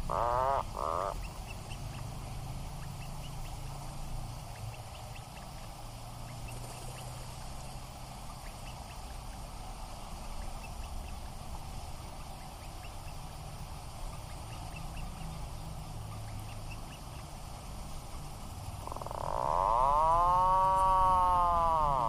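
Atlantic puffin calling: a few short calls that end about a second in, then a long drawn-out call near the end that rises and falls in pitch. Between the calls only faint ticks and a low hum are heard.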